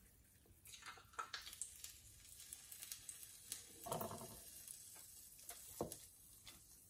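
Faint, scattered crackling sizzle of a ground-pork meatball frying in hot oil in a pot.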